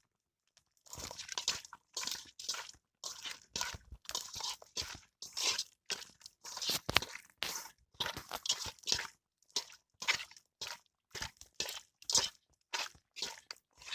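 Hands mixing raw chicken pieces with turmeric powder in a bowl: repeated wet squelching and crunching strokes, about two to three a second.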